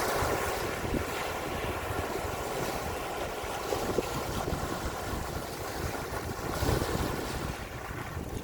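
Sea waves washing and wind blowing across the microphone: a continuous rushing noise with choppy low buffeting, swelling a little about seven seconds in.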